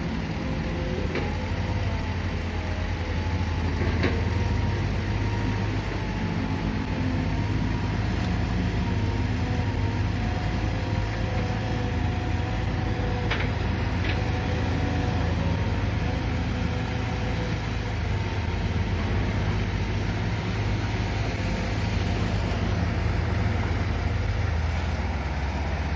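Hitachi EX130 amphibious excavator's diesel engine running steadily under load as the machine climbs a steep river bank on its pontoon tracks, with a wavering whine over the low engine drone and a few sharp clanks from the tracks.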